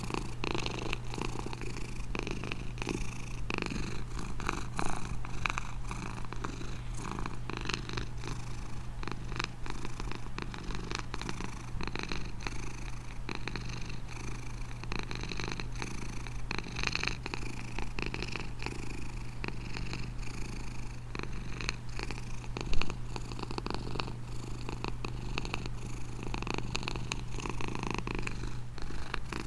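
Domestic cat purring steadily and continuously, with a brief louder sharp sound about three-quarters of the way through.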